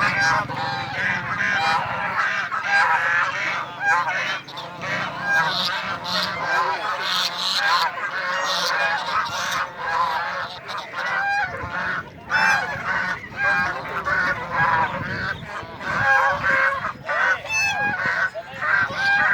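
A flock of white domestic ducks quacking, many calls overlapping without pause.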